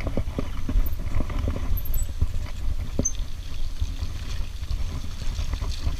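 Mountain bike riding over a wet, rutted dirt trail: a steady low rumble with frequent small clicks and rattles from the bike jolting over the rough ground.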